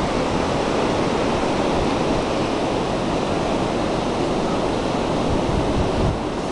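Steady wash of ocean surf on a beach, mixed with wind buffeting the microphone.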